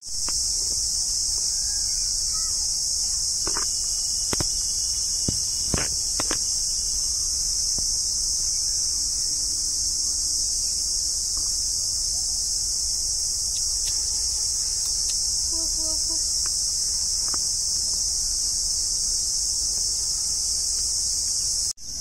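Steady, high-pitched drone of an insect chorus, with a few light clicks about four to six seconds in; the drone cuts off suddenly near the end.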